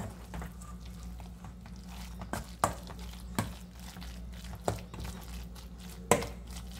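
A metal utensil stirring a thick shredded-cabbage and carrot omelette batter in a stainless steel bowl: soft mixing sounds broken by about six sharp clinks against the bowl at irregular intervals.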